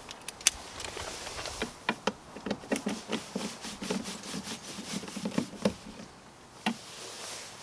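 A Phillips screwdriver turning out a screw on a car door trim panel: a run of small, irregular clicks and short scrapes, thickest in the middle stretch, with a sharper tick about half a second in and another near the end.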